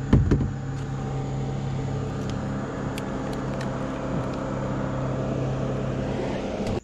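An engine runs steadily at one pitch, a constant low hum that cuts off abruptly near the end. A couple of sharp knocks come right at the start, with scattered light ticks over the hum.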